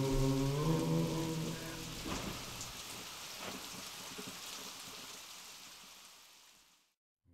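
Soundtrack music: held synth-like notes give way to a steady rain-like hiss. The whole track fades down and goes silent just before the end.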